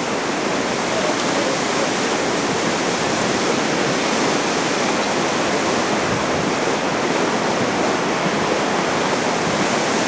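Steady rushing of the Storforsen rapids on the Pite River, a large volume of open water pouring over rocks between banks of snow and ice.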